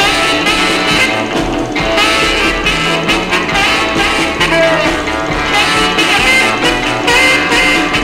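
Swing-style band music with a bass line stepping from note to note.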